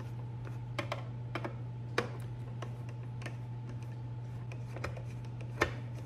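A screwdriver taking the screws out of the back of a wooden picture frame: a few irregular light clicks and taps of metal on the screws and frame, over a steady low hum.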